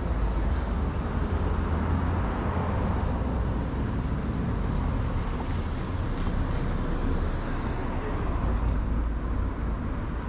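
Street traffic at an intersection: cars passing with a steady low rumble of engines and tyres.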